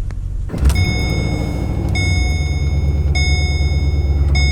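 Holden Commodore 6.0 L V8 idling low at about 650–700 rpm with a misfire, a steady low rumble. From about half a second in, a high warning chime repeats about every 1.2 s, four times.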